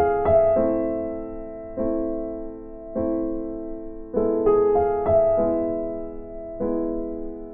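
Slow, soft piano music: chords struck every second or so, each ringing and fading before the next, with a few quicker notes near the start and about two-thirds of the way through.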